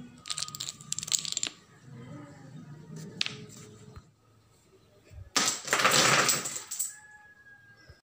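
A short row of painted wooden dominoes toppling one into the next: a quick clatter of clicks about half a second in, lasting about a second. A louder, longer rush of noise follows a little past the middle.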